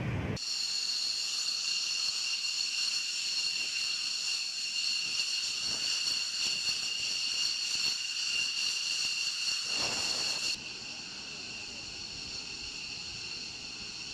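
Jet engine running with a steady high-pitched whine and hiss. It drops a little in level about ten and a half seconds in.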